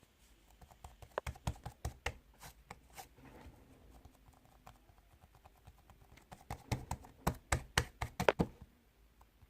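An irregular series of sharp taps and clicks, in two bursts: one around the first few seconds and a louder, quicker one from about six and a half to eight and a half seconds in.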